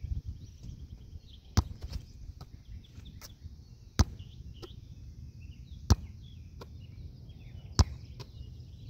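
Soccer ball tossed against a concrete curb and caught as it bounces back, again and again: four sharp smacks about two seconds apart, with fainter taps between them, over a low steady rumble.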